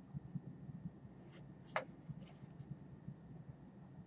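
Quiet room tone with a low, steady hum, broken by a single short click a little under two seconds in.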